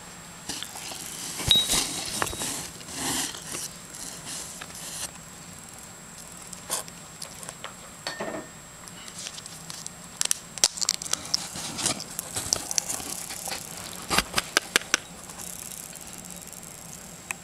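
A hedgehog eating worms: an irregular run of small, sharp crunching clicks and smacks, thickest about ten to fifteen seconds in, with soft rustling around them.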